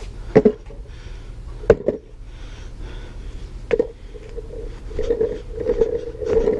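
Skateboard wheels rolling over brick pavers with a steady rumble and hum, broken by sharp clacks about half a second in, near two seconds and near four seconds; the rolling grows louder and rougher in the last second or two.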